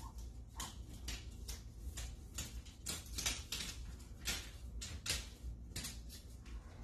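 Paper rustling and crinkling in many short, sharp strokes as a large wall-mural backing sheet is handled and pressed against the wall, over a low steady hum.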